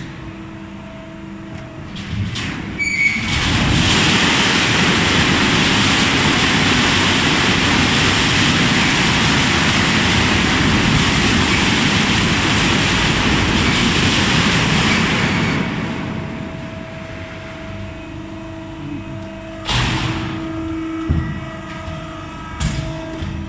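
Factory machinery running with a steady hum. About three seconds in, a loud, even rushing noise starts, lasts about twelve seconds and fades away. Near the end there are a few sharp metallic knocks.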